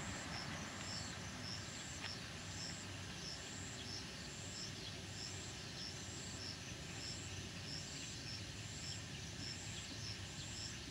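Countryside insects calling: cicadas and crickets make a high, evenly repeating pulsing trill. A few faint bird chirps and a low steady rumble sit underneath.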